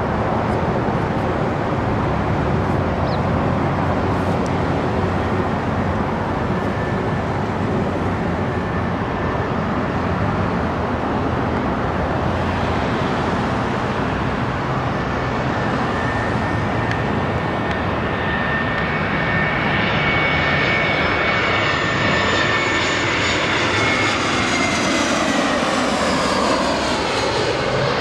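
Airbus A320-family airliner on landing approach, its engine noise growing as it comes closer and passes overhead. A jet whine comes in about halfway through and sweeps down in pitch over the last several seconds.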